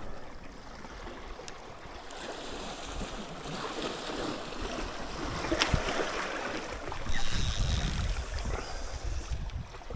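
Wind buffeting the microphone over the wash of sea water, swelling into a strong low gust about seven seconds in. A single sharp click comes a little before the gust.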